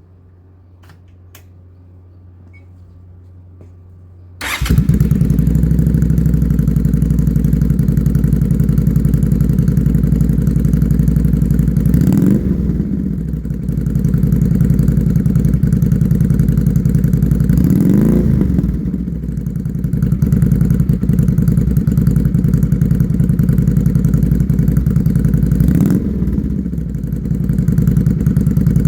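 Honda Shadow 400 V-twin with Screamin' Eagle mufflers fires up about four seconds in and settles into a loud, even idle. The throttle is blipped three times, each a quick rise and fall in pitch.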